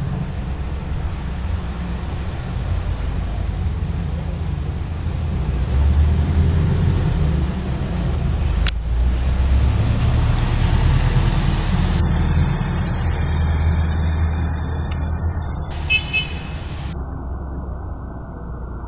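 Road traffic on the street below: the low rumble of car engines and tyres, swelling as cars pass and then easing off. A brief high tone comes near the end.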